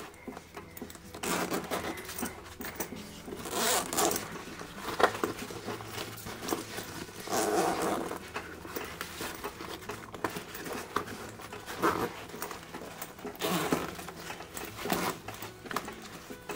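Zippers and nylon fabric of a Shimoda Explore v2 30 camera backpack being handled: zips pulled in short, irregular bursts, with fabric rustling between them.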